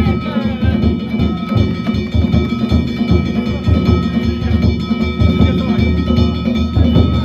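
Danjiri float's narimono band: taiko drums beaten in a fast, continuous rhythm, with hand-struck kane gongs ringing steadily over them.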